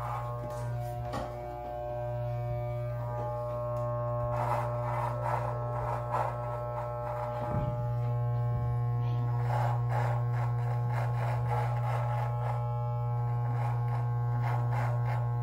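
Electric beard trimmer buzzing steadily as it cuts through beard hair.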